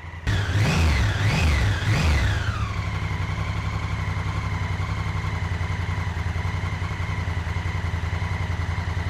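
Honda Africa Twin's 998 cc parallel-twin engine running in neutral: the throttle is blipped three times in quick succession near the start, then it settles to a steady idle. It is being run to purge air from its freshly refilled cooling system.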